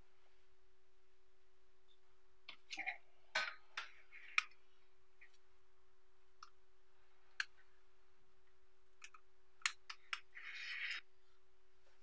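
Scattered small clicks and taps of hands handling magnetic balls, a steel ball on a thread and a hot glue gun: a quick cluster a few seconds in, single clicks after, and a short rustle near the end, over a steady hum.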